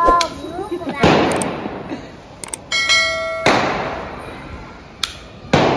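Sharp pops from a child's red toy cap gun, several over a few seconds, each ringing out with echo off bare concrete. A short bell-like chime rings briefly in the middle.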